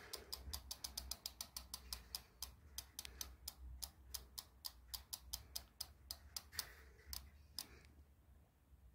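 Faint, even ratchet ticking from the rear hub of an EKX X20 e-bike's geared hub motor as the wheel turns, about six clicks a second at first, slowing and dying away about seven seconds in as the wheel coasts to a stop.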